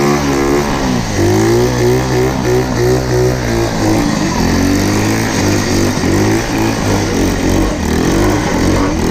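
110cc quad's small single-cylinder engine revving up and down while being ridden, its pitch rising and dropping again and again as the throttle is opened and let off.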